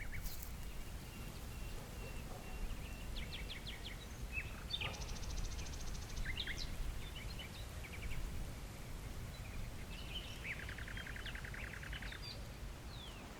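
Songbirds chirping and trilling, with a rapid repeated-note trill about five seconds in and a lower, longer trill near the end, over a steady low rumble.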